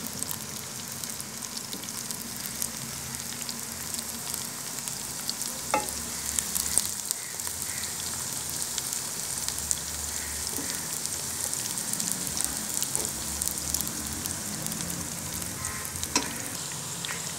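Bitter gourd (karela) slices frying in hot oil in a kadhai: a steady sizzle full of fine crackling pops. Two sharp knocks stand out, about six seconds in and near the end.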